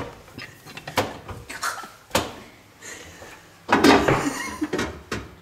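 Microwave door being handled: a series of sharp clicks and knocks from the latch and door, then a louder rattling stretch about four seconds in.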